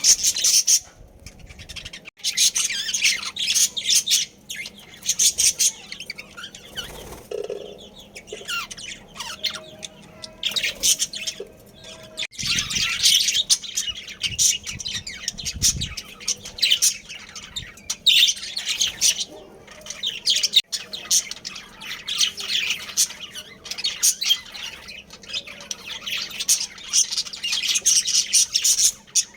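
Budgerigars chirping and chattering in quick, high notes, almost without pause.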